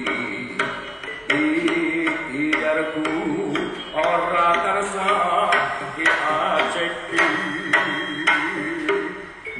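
Live East Javanese jaranan music: sharp drum and metal percussion strokes several times a second under a wavering melodic line.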